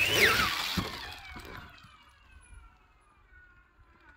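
Electric Motion electric trials bike's motor whining under load on a rocky climb. The whine is high and falls in pitch as it fades away over the first two seconds, with a single thump about a second in.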